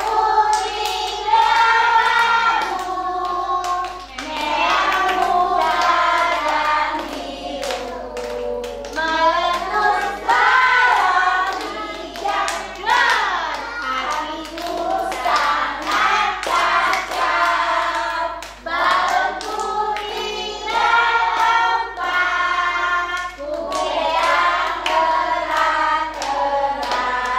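Women and a young child singing a children's action song together, with hand claps along the way.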